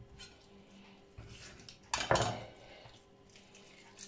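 A kitchen knife knocks against a wooden cutting board about two seconds in, with quieter handling and scraping noises as the skin is cut and pulled off a raw chicken leg.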